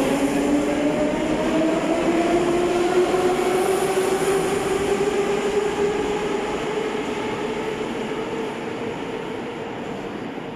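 An 81-717.5M 'Nomernoy' metro train accelerating out of the station, its traction motor whine rising steadily in pitch over the rumble of the cars. The sound fades over the last few seconds as the train pulls away into the tunnel.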